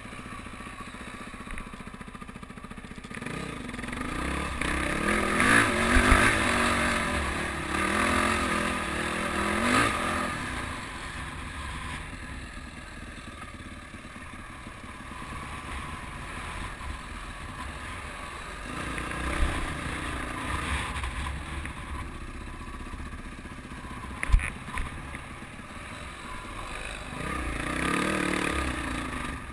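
Dirt bike engine heard from the rider's helmet, revving up and down over a rough trail, louder about four to ten seconds in and again near the end on a steep climb. A couple of sharp knocks come through, one about six seconds in and a louder one about twenty-four seconds in.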